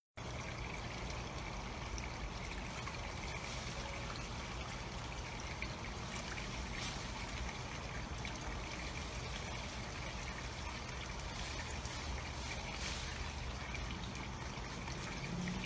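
Steady outdoor background hiss with a low rumble and a faint steady high tone, broken by a few faint clicks.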